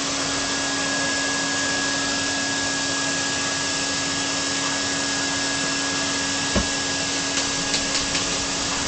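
Vacuum cleaner running steadily with a constant hum. There is a single thump about six and a half seconds in and a few light knocks near the end.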